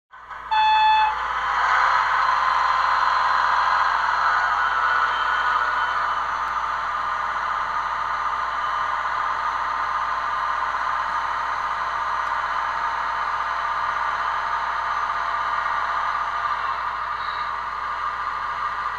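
Roco digital model railway crane and diesel shunter rolling along the track, their sound decoder playing through a small onboard speaker. A short horn blast comes about half a second in, then a steady engine running sound with clatter.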